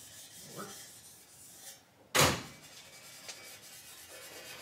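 Someone rummaging through a car while searching it, with soft rubbing and shuffling sounds and one sudden loud thump about two seconds in.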